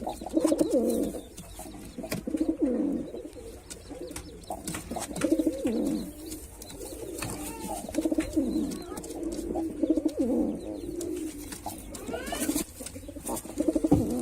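Male white domestic pigeon cooing over and over, a low rolling coo repeated every second or two, with a few sharp clicks between calls.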